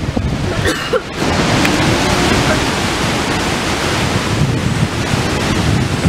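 Steady rushing noise of a large waterfall and its river, mixed with wind buffeting the microphone.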